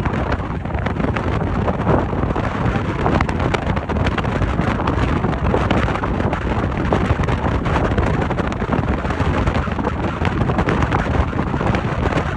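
Strong wind buffeting the microphone, a constant gusty rumble with a dense rushing hiss over it.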